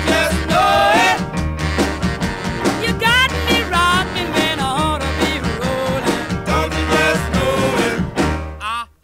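Background music: a song with a sung melody over a steady beat. It drops out briefly near the end.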